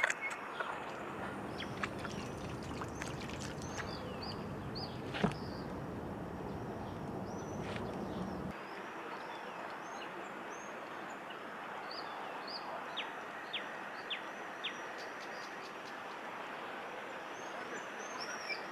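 Lakeside outdoor ambience: a steady hiss with small birds chirping now and then, and a low rumble that cuts off about eight and a half seconds in.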